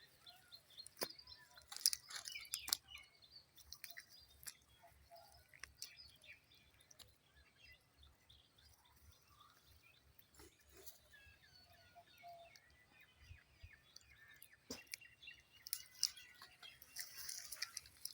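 Small birds chirping and twittering, with a few sharp clicks scattered through.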